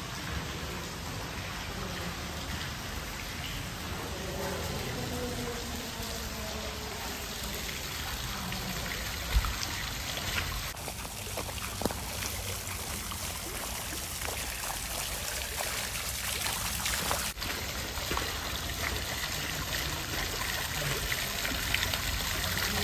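A stone-basin garden fountain splashing and trickling steadily, with one sharp knock about nine seconds in.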